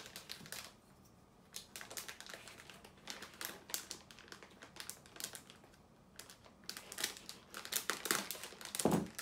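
Clear plastic resealable bag crinkling in quick bursts as it is handled and pulled open. The crinkles are sparse early on and densest and loudest in the last two seconds.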